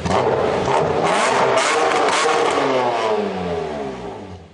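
Car engine revving, its pitch rising and falling several times, with a few short crackles over it, then fading out near the end.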